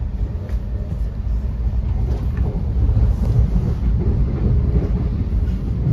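Thameslink electric passenger train running, heard from inside the carriage: a steady low rumble of wheels and running gear on the track.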